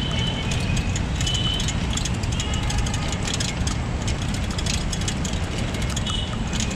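Yulu rental bike rolling along a park path, heard as a steady low rumble of wind and road noise on the handlebar-level camera microphone, with many light rattling clicks.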